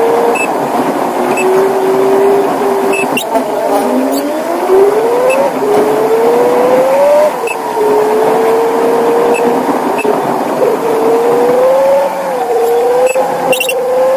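Tata Signa BS6 16-wheel truck driving, heard from inside the cab. Its engine and drivetrain make a steady whine over road noise, and the pitch rises and falls with speed, with a long rising sweep about four seconds in as it picks up speed.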